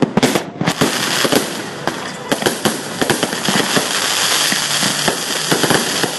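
Fireworks going off in a rapid, continuous barrage of sharp pops and bangs, turning into a dense crackle from about a second in.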